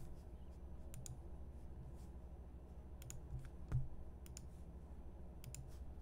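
Faint, scattered clicks of a computer mouse and keyboard, a dozen or so at irregular intervals, over a low steady hum.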